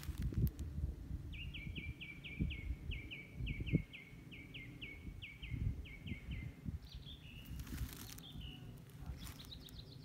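A songbird singing a long run of quick, downward-sliding whistled notes, about four a second, for some five seconds, with a few shorter calls near the end. Low rumbling and soft thumps lie underneath.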